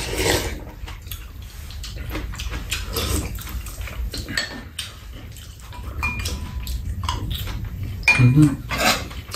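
Spoons and chopsticks clinking and scraping against bowls and a pan during a meal, a steady run of light clicks, with a slurp from a spoon at the start. A short, louder low sound comes about eight seconds in.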